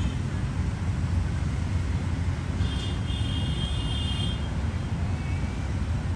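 Steady low rumble of city street traffic, with a high tone for about a second and a half around the middle.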